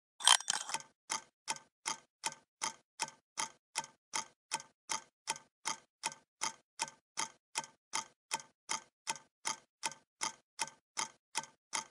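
Steady clock-like ticking, nearly three ticks a second, after a louder sound at the very start.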